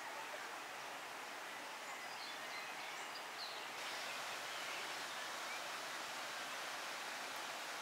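Outdoor ambience: a steady, even hiss like wind in foliage, with a few faint bird chirps in the first half; the hiss grows slightly louder about four seconds in.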